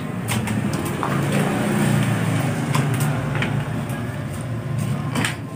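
Clear plastic packaging being handled, with a few sharp crinkles and clicks, over a steady low engine-like rumble.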